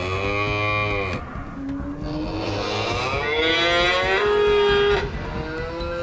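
Cattle mooing: a short moo at the start, then a long drawn-out moo from about a second and a half to five seconds in, and another moo beginning near the end.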